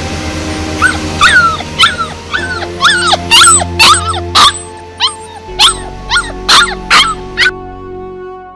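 A puppy yelping and whimpering in about a dozen short, high cries that bend in pitch, over background music; the cries stop about a second before the end.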